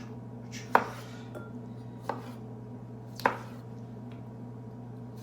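Kitchen knife cutting tomatoes, the blade knocking sharply on the board four times about a second apart, over a low steady hum.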